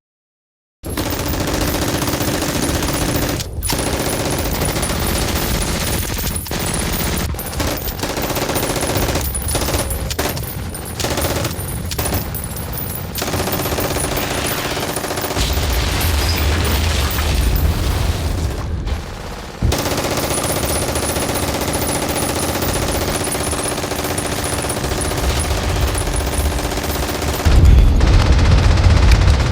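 Film battle soundtrack of WWII small-arms fire: machine-gun and rifle shots overlapping densely without a break. It starts suddenly after a moment of silence, dips briefly about two-thirds of the way in, and grows heavier and deeper near the end.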